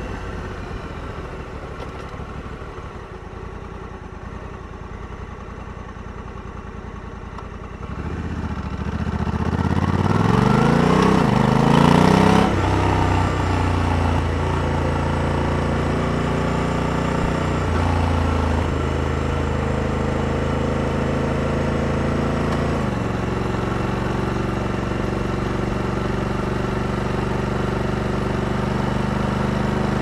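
Honda Africa Twin 1100's parallel-twin engine running steadily and fairly low, then about eight seconds in it pulls harder with the pitch rising. The dual-clutch transmission shifts up around twelve seconds in with a sudden drop in pitch, shifts twice more later, and the engine then runs on steady under way.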